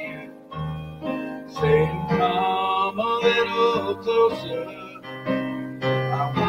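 Piano playing an instrumental interlude of a gospel song: chords with a melody over them, no singing.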